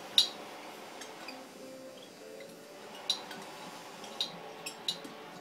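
Sharp metallic clinks of a small L-bracket and studs being handled and fitted against a polished metal intake manifold plenum: about six separate taps, the loudest just after the start.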